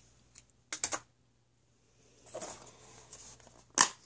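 Kitchen handling noises: two quick sharp clicks about a second in, then a stretch of soft rustling and scraping as a plastic container is handled over the mixing bowl, ending in one loud sharp click, the loudest sound here.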